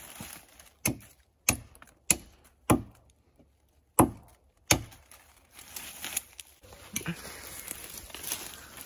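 Lamaca bushcraft axe chopping into the base of a small alder trunk: six sharp blows over about four seconds, the loudest about four seconds in. Then rustling and crunching of dry brush underfoot.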